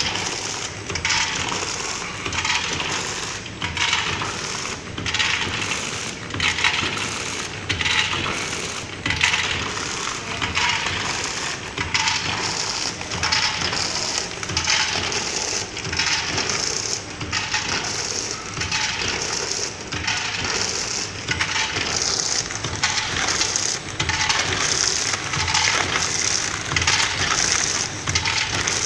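Small vertical form-fill-seal pouch packaging machine running, cycling about once a second: each stroke of its sealing jaws and film pull brings a burst of rustling plastic film and mechanical clatter.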